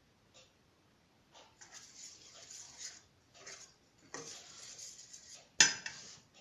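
Kitchen dishes and a spoon being handled while chia seeds are soaked in milk with honey: a few light clicks and stretches of soft scraping noise, then one sharp clink a little over five seconds in, the loudest sound.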